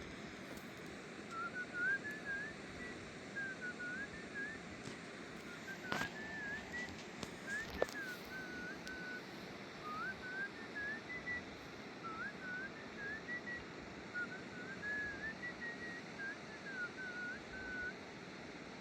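A person whistling a wandering tune in short phrases over a steady background rush, with a sharp knock about six seconds in.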